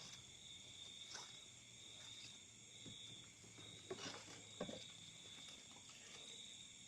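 Faint, steady high chirring of night insects, typical of crickets, with a few soft knocks about a second in and again around four seconds in.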